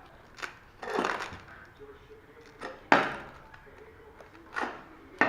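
About six irregular knocks on a ceramic floor tile, the loudest near the middle: the tile being tapped down into fresh tile adhesive while it is levelled.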